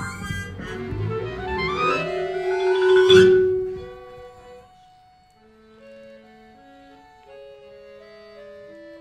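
Small instrumental ensemble playing: two fast rising runs over low thudding bass in the first few seconds, then the music drops to a quiet, sparse line of held single notes.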